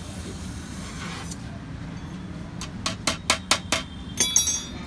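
Steel striking steel during gas-welding work on a motorcycle silencer: a quick run of about six sharp metallic taps midway through, then a few ringing metallic clinks, over a steady background noise.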